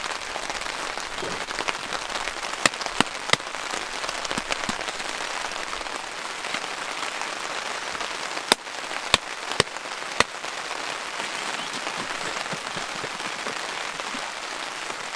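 Light rain pattering steadily on a tarp overhead. A few sharp clicks or taps stand out: three about three seconds in and four more between eight and a half and ten seconds in.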